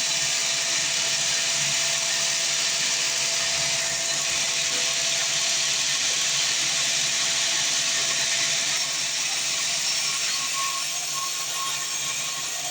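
Sawmill saw running steadily through a fresh mahogany log: a loud, even rushing noise with a steady whine, easing off slightly near the end.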